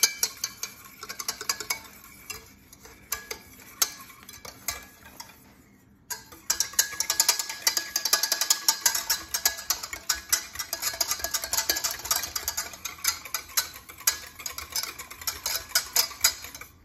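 Wire whisk beating an egg-yolk, vinegar and oil mixture in a stainless steel pot, with rapid clinking strokes against the metal as mayonnaise is emulsified by hand. The strokes are lighter and sparser at first, pause briefly about six seconds in, then pick up into fast, steady whisking.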